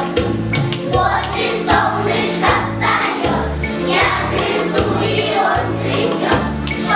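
A song with a steady beat, sung by a group of voices from about a second in.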